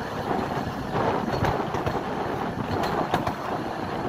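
A 15-inch gauge miniature railway carriage running along the track, with the steady rumble of its wheels on the rails. A few sharp clicks come in the middle, as the wheels pass over rail joints.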